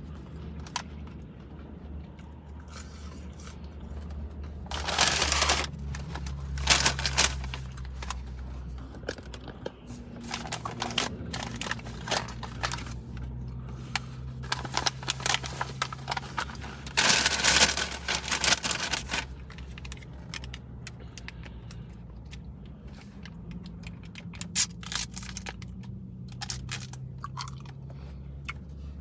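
Paper takeout bag and foil-lined sandwich bag rustling, crinkling and tearing as the food is unwrapped, with two louder bursts of crinkling, one about five seconds in and one past the middle. A low steady hum runs underneath.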